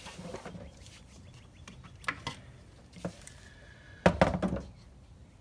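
Scattered metal clicks and knocks as a serpentine belt tensioner on a Ford V8 is worked loose by hand and tool, with a loud burst of clunks about four seconds in.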